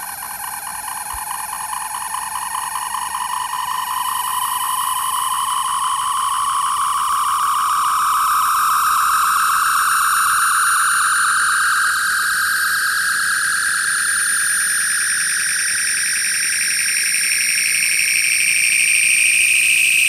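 The phaser-overload sound effect played from a Wand Company Star Trek hand phaser replica's speaker: an electronic whine that climbs slowly and steadily in pitch and grows louder throughout, with a fast warble.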